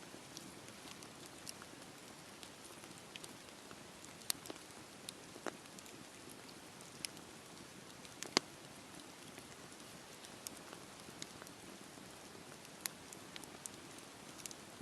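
Campfire burning: a soft steady hiss with scattered sharp crackles and pops, the loudest about eight seconds in.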